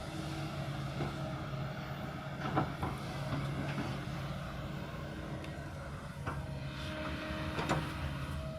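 Kobelco excavator's diesel engine running steadily, with a few sharp knocks, the loudest about two and a half seconds in and again near the end.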